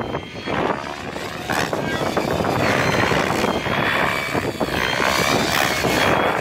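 GAUI X7 electric RC helicopter flying low past, its rotor and motor whine rising and falling in pitch as it manoeuvres.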